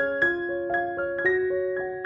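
Background music: a gentle piano melody of single struck notes, a few a second, each ringing on as it fades.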